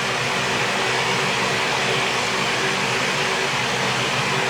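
Steady, even whooshing noise with a faint low hum, unchanging throughout, of the fan-like kind.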